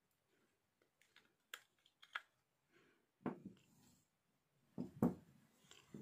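Small plastic clicks and taps as AA batteries are pulled out of a TV remote's battery compartment and set down: a few light clicks, then two louder knocks about three and five seconds in.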